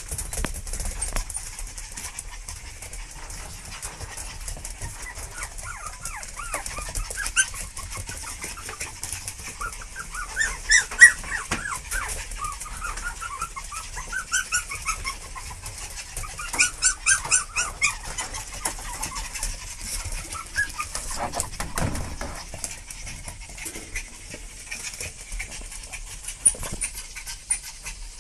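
Chihuahua puppies whimpering in short, high-pitched squeaky cries that come in several bursts, busiest in the middle.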